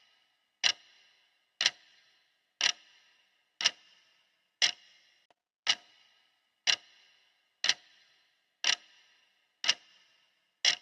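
Steady ticking of a countdown timer's tick sound, one sharp tick each second with a brief ringing tail.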